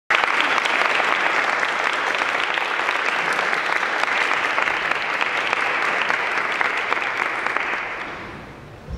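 Audience applauding steadily, then dying away over the last second or so.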